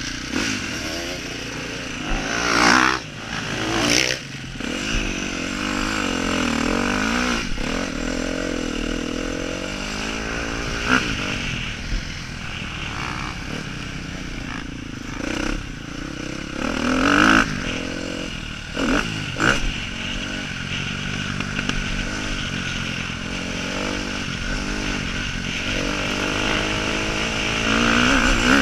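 Motocross bike engine revving up and falling back again and again as it is ridden over a dirt track, heard close from the rider's helmet. Several short, louder bursts break in along the way.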